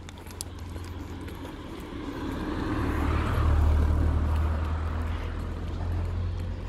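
A car passing on the road: its tyre and engine noise swells to its loudest about three and a half seconds in, then fades away.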